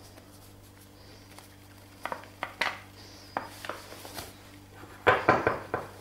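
Paper flour bag crinkling as it is handled over a ceramic cup of flour, with a few light clicks, then a quick run of louder clattering knocks about five seconds in.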